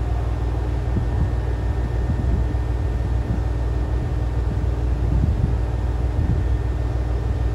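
Hokuhoku Line electric train approaching the platform at low speed: a steady low rumble that grows a little busier near the end as it comes closer.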